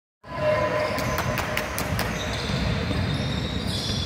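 A basketball being dribbled on a hardwood court in a large sports hall, with a quick run of sharp bounces about a second in over the din of play. The sound drops out for a moment right at the start.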